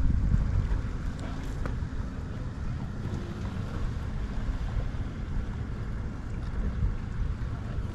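Wind buffeting the microphone, an uneven low rumbling rush that rises and falls in gusts.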